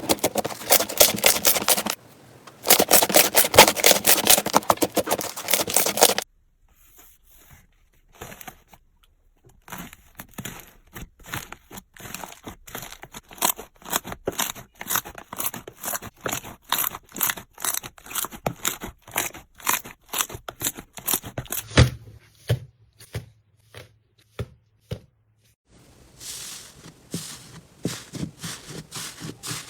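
Slime being handled: squeezed, pressed and poked, making sticky crackles and pops. Dense crackling for the first six seconds gives way, after a short pause, to a long run of sharp clicks several a second, then a few soft thumps and more crackling near the end.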